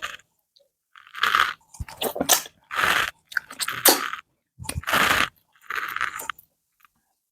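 Close-up eating sounds: chewing and mouth noises of rice fufu and okra soup, coming in short separate bursts about once a second.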